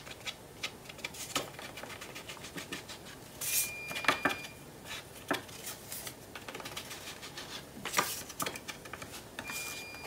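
Dishwasher beeping in the background: a steady high beep about a second long, heard twice, near the middle and again near the end. Under it, paper strips rustle and tap as they are handled on a cutting mat.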